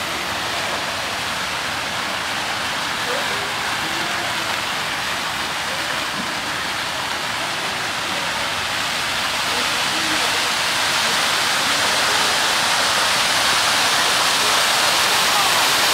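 Steady rushing, hissing noise, like running water or rain, growing a little louder about ten seconds in, with faint distant voices under it.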